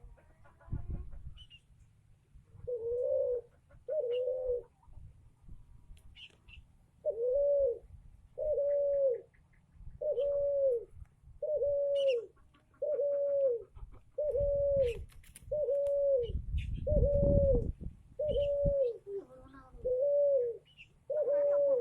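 A bird giving a long run of single hoo-like notes, each a little under a second and arched in pitch, repeated about once a second; the title calls its voice strange. A low rumble sounds under the calls in the middle.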